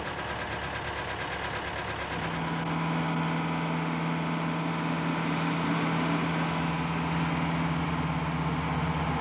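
Truck engine running steadily at cruising speed, heard from inside the cab, as one steady hum over road noise. It comes in about two seconds in, after a stretch of softer outdoor traffic noise.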